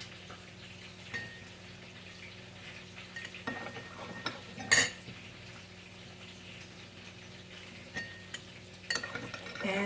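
A few scattered clinks and knocks of a spoon against a bowl as a dipping sauce is made, the loudest about halfway through, over a faint steady hum.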